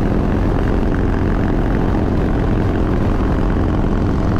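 Harley-Davidson Breakout's V-twin engine running steadily at highway cruising speed, heard close up over a constant rush of wind.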